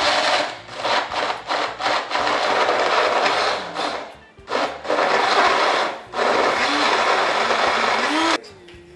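Personal bullet-style blender running, chopping lemon and cucumber pieces in water. It runs in three long bursts with brief breaks about four and six seconds in, then cuts off sharply near the end.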